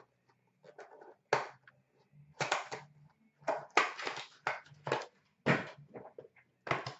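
Cardboard trading-card boxes and their packaging being handled on a glass counter: a string of short rustles, scrapes and knocks as boxes are picked up, opened and set down.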